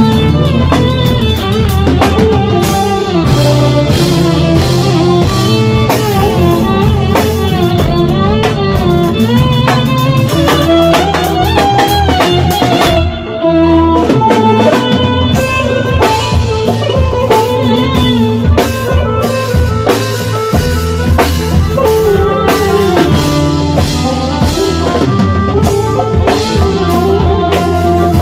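A live Turkish arabesk-pop band plays an instrumental passage between sung verses. A drum kit keeps the beat under a melodic lead and plucked strings, with a brief drop in loudness about halfway through.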